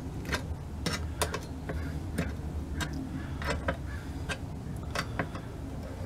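Hand wrench clicking as a bolt on the underside of a steel switch panel is tightened: sharp, irregular clicks, two or three a second, over a steady low hum.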